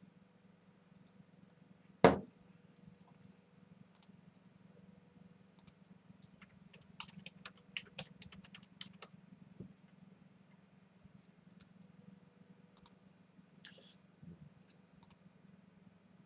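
A single sharp knock about two seconds in, the loudest sound, then a quick run of typing on a computer keyboard, with scattered single key clicks before and after.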